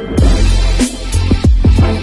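Electronic music with a heavy bass: deep bass notes that slide down in pitch several times, over drum hits.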